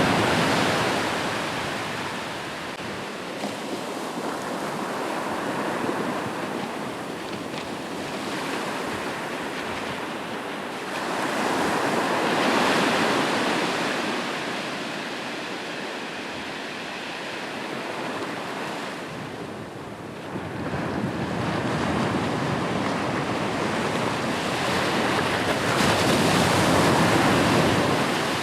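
Ocean waves breaking on a shore, a steady wash of surf that swells with each incoming wave, about four times over, and eases back between them.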